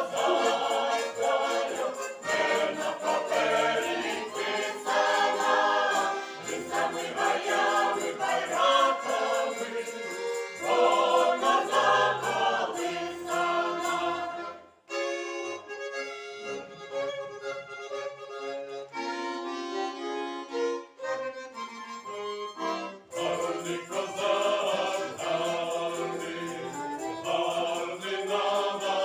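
Folk choir singing in chorus with bayan (button accordion) and violin accompaniment. About halfway through, the voices stop and the bayan and violin play alone for about eight seconds, then the choir comes back in.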